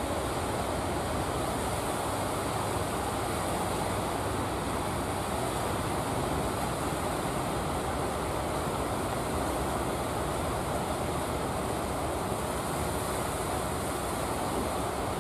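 Steady, even wash of breaking surf and wind, with no distinct hits or changes.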